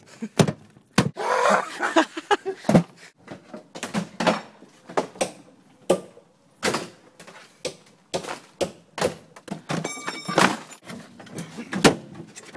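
Irregular knocks, thuds and clunks against the metal body of a Volkswagen Golf as its interior is stripped out, with a brief metallic ring about ten seconds in.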